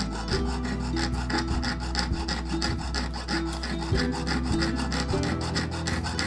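Jeweller's saw cutting through a tight coil of copper wire, rasping in quick, even back-and-forth strokes.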